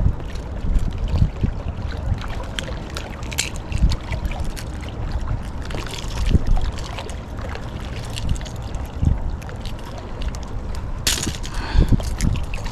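Wind rumbling on the microphone with small water sounds and scattered clicks and knocks of handling, and one sharp, louder noise about eleven seconds in.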